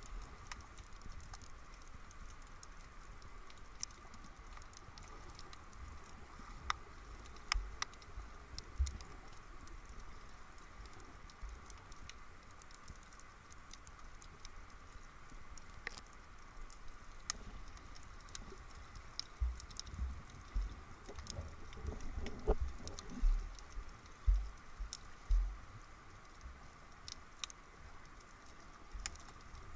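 Underwater sound through a submerged camera: a constant scatter of faint sharp clicks and crackles over a steady hiss, with a run of low thumps from about twenty seconds in.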